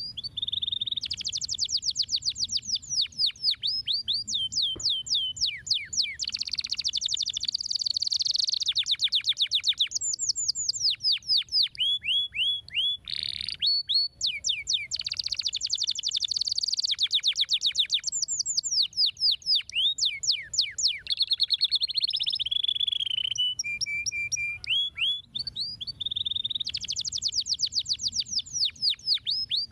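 Domestic canary singing a long, continuous song of rapid trills: fast runs of repeated downward-sweeping notes, switching to a new trill every second or two.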